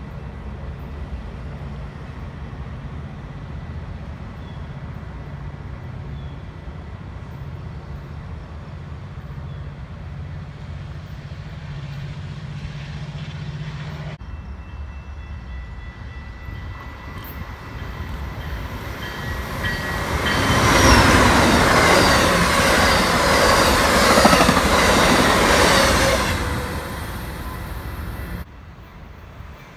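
Metra bilevel commuter train rolling past with a steady low rumble. After a cut, a train passes close and much louder for about six seconds, with rail clatter and high wheel squeal, then the sound drops off suddenly.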